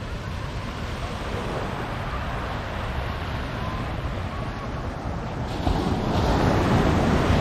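Steady outdoor noise of surf and wind, with wind buffeting the microphone, growing louder about six seconds in.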